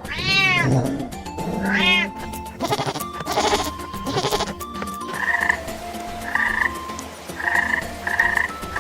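Two short animal cries that rise and fall in pitch in the first two seconds, followed by a simple melody of steady notes in the second half.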